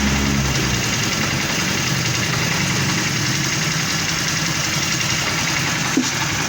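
Honda CD70 motorcycle's single-cylinder four-stroke engine idling steadily with a newly fitted clutch bearing. It runs without the bearing noise it made before the repair, a sign the fault is cured.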